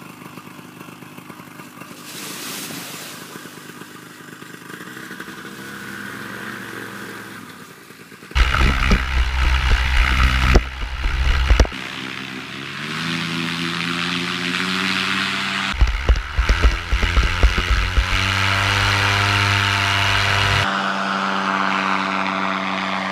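Parajet Maverick paramotor's two-stroke engine running, its pitch rising and shifting as it is throttled up for the takeoff run. Wind buffets the microphone in two loud stretches, about 8 s in and again about 16 s in.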